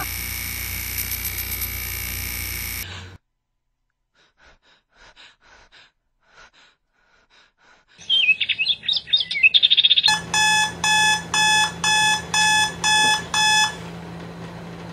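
Electronic alarm clock beeping in even pulses, about two a second, for roughly four seconds before it stops. Before it come a few seconds of bird-like chirping, and before that a steady hum that cuts off suddenly about three seconds in.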